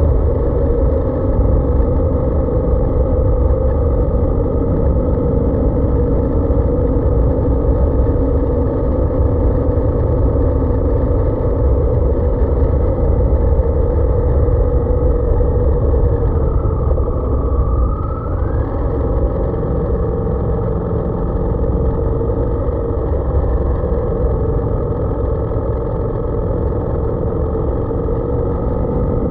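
Motorcycle engine running steadily on the move, heard from a camera on the bike, over a constant low rumble. About two-thirds of the way through, the engine note dips and then climbs again.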